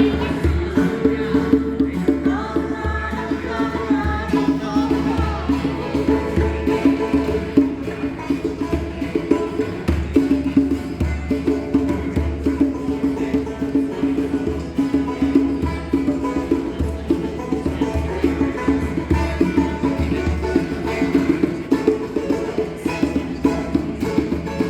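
A folk song played live by a small group, with a steady beat from hand percussion under sustained instrumental lines.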